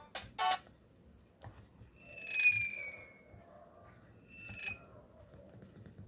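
The ringtone preview on an Alcatel Big Easy mobile phone ends with two short notes, followed by two falling whistle-like tones, the first long and loud, the second shorter and fainter.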